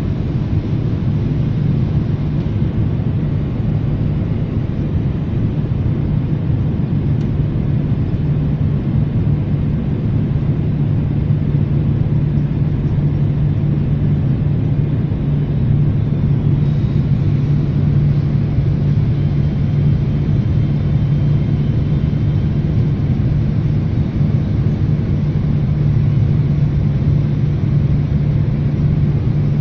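Steady airliner cabin noise in flight: the constant drone of the jet engines and rushing air, with a strong low hum underneath.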